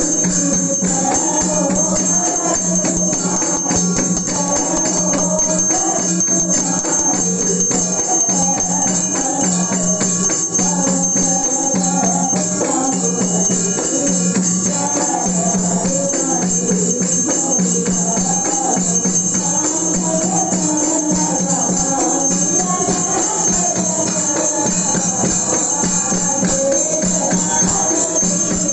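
Hindu aarti, devotional singing by voices over dense, fast jingling and clanging percussion, continuous and steady in loudness.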